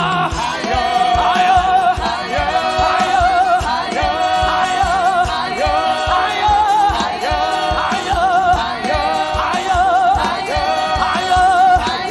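Upbeat gospel praise music: voices singing over a fast, steady drum beat.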